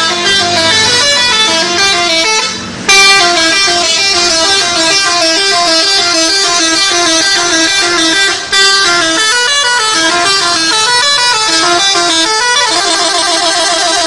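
Indonesian bus 'telolet' horn, a multi-tone musical horn, playing a quick stepping melody. The tune breaks off and restarts twice, then turns into a fast warbling trill near the end.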